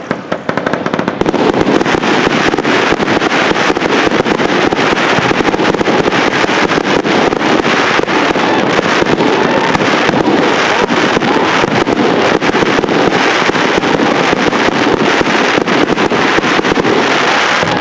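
Fireworks display in a dense barrage: rapid, overlapping bangs and crackling from bursting shells and comets, loud and unbroken from about a second in.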